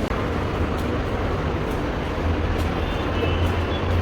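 Bengaluru metro train running: a steady rumble that grows louder about halfway through.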